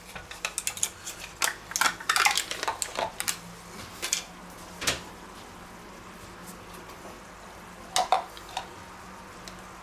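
Metal spoons scraping and tapping crème fraîche out of plastic tubs into a stainless steel mixing bowl: a quick run of sharp clicks and clinks for the first three seconds, a couple more around four and five seconds in, then a pause and two more near the end.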